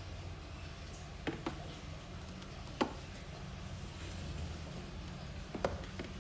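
A clear plastic snake tub clicking and knocking as it is handled and set down on a tiled floor: a few short sharp knocks, two close together about a second in, the loudest near the middle and a cluster near the end. A steady low hum runs underneath.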